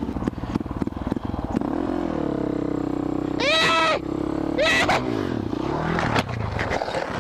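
KTM 525 SMR supermoto's single-cylinder four-stroke engine revving hard as it accelerates, with two short high-pitched squeals in the middle, then a sharp knock about six seconds in as the bike goes down on its still-wet tyre.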